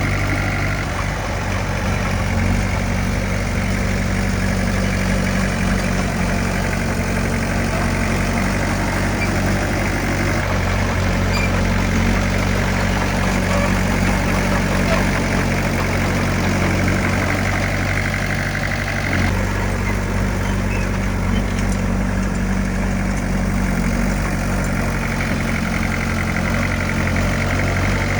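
Heavy earthmoving machine's diesel engine running steadily, its note shifting slightly about two-thirds of the way through.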